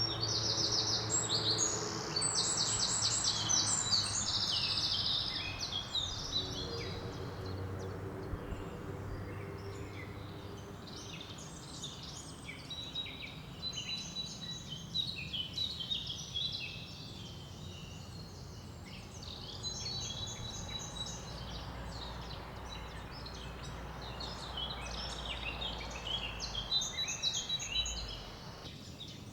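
Small woodland birds chirping and singing over the steady rush of a river running over small rapids. The birdsong is densest in the first few seconds, with fast trilled runs of notes, then goes on as scattered chirps.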